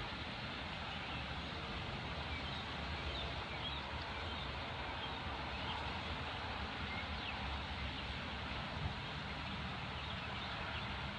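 Steady background noise with a low rumble, and faint short bird-like chirps now and then.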